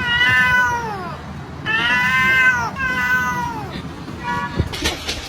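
Domestic cat meowing: three long, drawn-out meows, each falling in pitch, then a short meow near the end.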